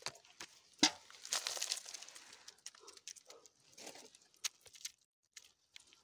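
Woven bamboo fish basket being handled: rustling and scattered sharp knocks, the loudest just under a second in, thinning to a few faint ticks near the end.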